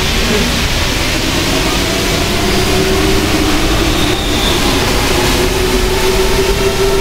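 Rubber-tyred MP05 metro train running through the tunnel, heard from inside the car: a loud, steady rumble and rush with a motor whine that rises slightly about halfway through.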